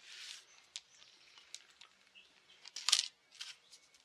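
Handling noise: a short hiss, then a few sharp isolated clicks and a louder cluster of clicks about three seconds in, as parts of a chainsaw's carburetor and air-filter area are handled.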